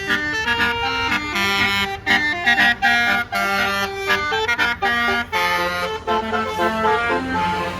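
A bus's Basuri telolet horn playing a fast melody of reedy, stepped notes over the low rumble of the bus's engine; the tune changes to lower, longer notes about five seconds in.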